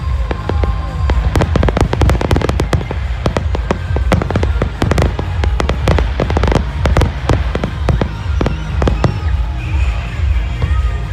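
Aerial fireworks in a rapid barrage: many shell bursts and crackling reports in quick succession, densest from about a second in to past the middle, then thinning out near the end, over a steady low rumble.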